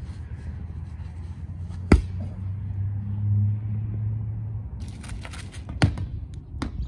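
A large rubber playground ball is struck with one sharp thump about two seconds in. The ball is sent up into the air, over a steady low outdoor rumble. A second thump comes near the end.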